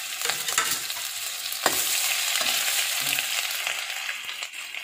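Crushed ginger-garlic paste sizzling in hot oil with cumin and mustard seeds in a kadai, stirred with a spoon. One sharp tap about a second and a half in; the sizzle eases off near the end.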